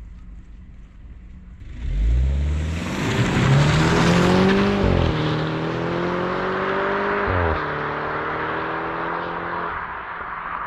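BMW 125i M Sport with its stock exhaust: its turbocharged four-cylinder idles, then about two seconds in it accelerates hard, the engine note climbing through the revs with two upshifts, and fades as the car pulls away.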